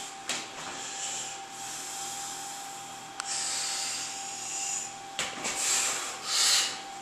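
A man breathing hard, with long hissing exhales after straining to clean a heavy anvil. The exhales come from about three seconds in, the loudest near the end, with a single sharp click just after three seconds.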